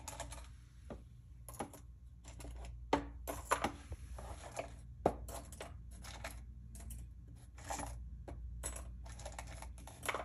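Irregular light clicks and clinks of costume jewelry (rings and earrings) being handled and sorted, over a low steady hum.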